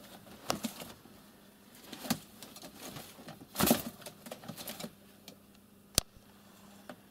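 Scattered light taps, clicks and rustles from movement in and around a homemade wooden cage with a wire front that holds pigeons and a cat. The loudest is a short scuffle about three and a half seconds in, and a single sharp tick comes at six seconds.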